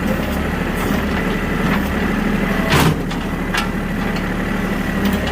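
Farm tractor engine idling steadily, with a sharp knock about three seconds in and a few lighter clicks.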